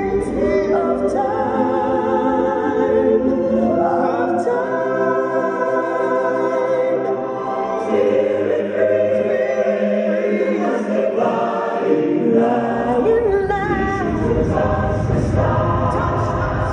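Choir singing held notes over musical accompaniment, part of the show's soundtrack.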